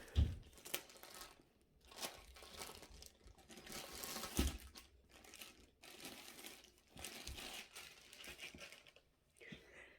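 Plastic packaging crinkling and rustling as it is handled, with a couple of soft thumps.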